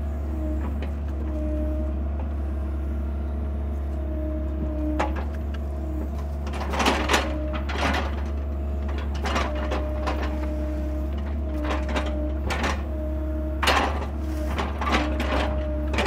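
Mini excavator's diesel engine running steadily, heard from inside the cab. A hydraulic whine comes and goes as the boom and thumb are worked, with a series of knocks and clunks as log sections are gripped and set down, loudest about seven and fourteen seconds in.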